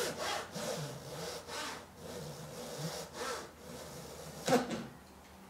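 Nakaya dozuki crosscut saw sawing through a bundle of taped hoop pine kumiko strips, in short back-and-forth strokes at about two a second. A sharper, louder stroke comes near the end, then the sawing stops.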